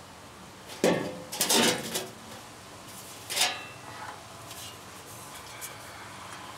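A flat sheet-steel replacement floor pan being lifted out of a VW Beetle's floor: the thin panel scrapes and clanks against the car's body, in a cluster of clatters about a second in and one more sharp clank about three and a half seconds in.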